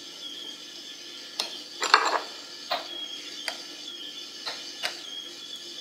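Scattered light clinks and knocks against glass jars as wet silk is pushed down into them. The loudest cluster comes about two seconds in, with single taps after it.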